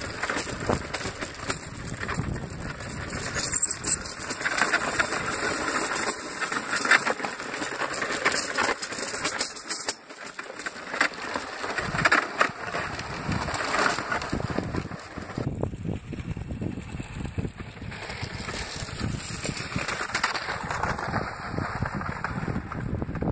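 Iceboat runners scraping and hissing over pond ice while under way, with many sharp rattling clicks and ticks and wind buffeting the microphone.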